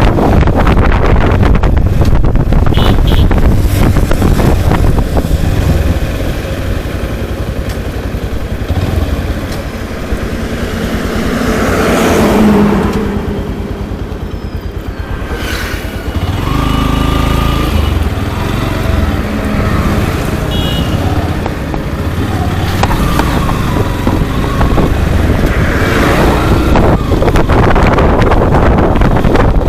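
Motorcycle ride: wind buffeting the microphone over the running engine, loud and continuous, easing off briefly in the middle.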